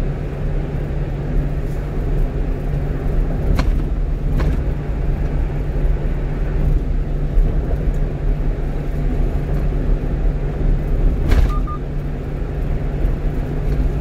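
Inside the cab of a 1-ton truck cruising on a highway: a steady drone of engine and tyre noise, with three brief clicks or knocks.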